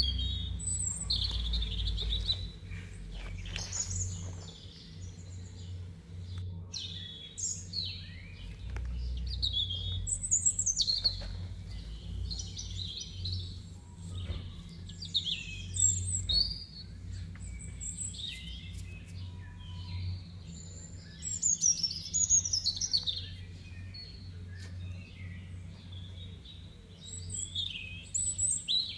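Small songbirds chirping and singing, short high calls and warbles coming and going throughout, over a steady low rumble.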